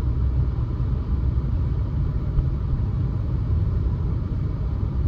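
Steady low rumble of a car driving on a snow-covered road, its engine and tyres heard from inside the cabin.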